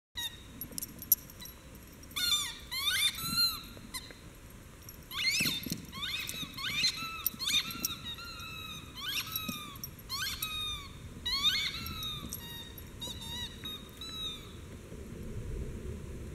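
Rubber squeaky football toy squeaking over and over as a dog chews it, in quick runs of short squeaks that each fall in pitch, with pauses between the runs. The squeaking stops near the end.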